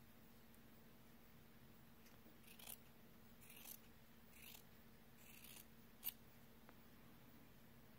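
Small scissors cutting a strip of thin, gauze-like cotton fabric: four faint snips about a second apart, then a sharper click.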